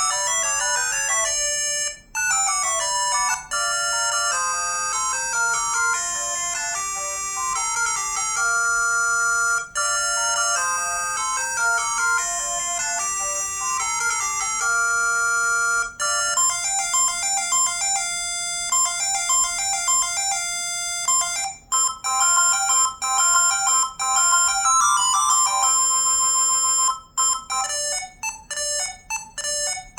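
ZTE V617 phone ringtones playing one after another: electronic melodies of clear, steady notes, with brief breaks near 2, 10, 16 and 21 seconds where one tune gives way to the next. Near the end comes a quick run of short repeated notes.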